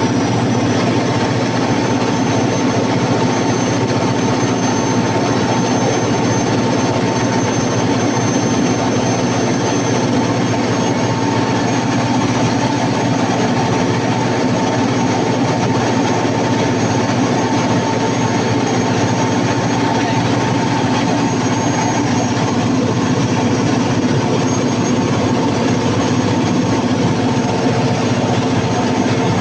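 Cummins KTA50 V16 diesel engine of a generator set, running loud and steady at constant speed with a continuous whine over it.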